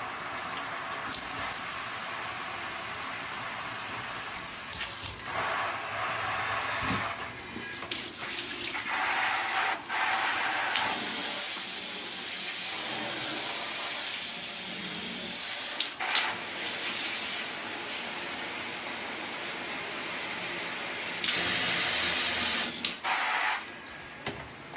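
Handheld shower head spraying water. The spray changes several times between a loud, high hiss and a softer, lower stream.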